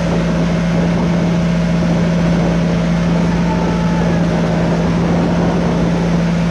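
Motorboat engine running with a steady, unchanging drone.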